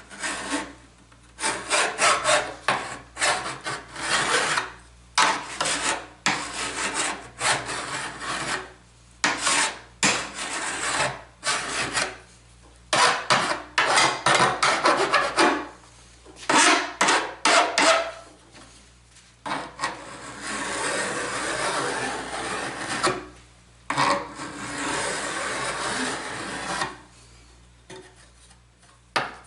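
Hand file deburring the freshly sawn edge of a piece of aluminum, in quick repeated rasping strokes with short pauses. Two longer, steadier passes follow about two-thirds of the way through.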